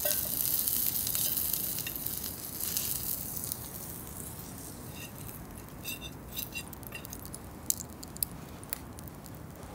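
Sizzling, like food frying, fading out about three and a half seconds in, then a scatter of light clicks and clinks.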